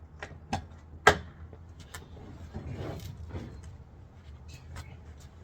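Handling of the cargo box's mounting parts: a few sharp knocks and clicks, the loudest about a second in, then a stretch of rubbing and rustling and a couple of light ticks near the end.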